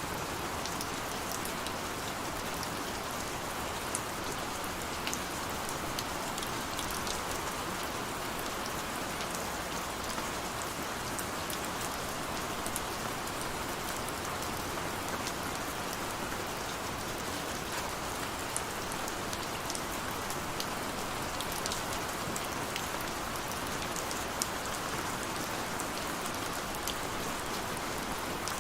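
Steady rain falling, with many small drop ticks scattered through a constant hiss.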